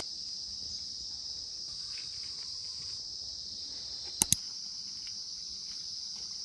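Cicadas singing: a steady high-pitched drone. Two sharp clicks come close together about four seconds in.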